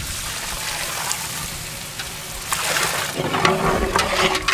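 Prawn-boiling water pouring from a steel bucket into a large pot of prawns frying in masala, a steady rushing gush. It turns more uneven with a few sharp clinks after about three seconds.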